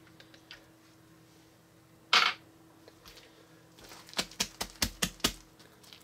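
Bead-studded floam putty being squeezed and pressed by hand on a glass sheet, giving sharp crackling pops: one loud snap about two seconds in, then a quick run of clicking pops about four to five seconds in.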